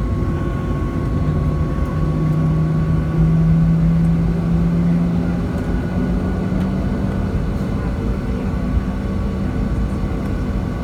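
Boeing 737-800 heard from inside the cabin, its CFM56-7B turbofan running with a steady hum. A low tone rises slightly in pitch a few seconds in.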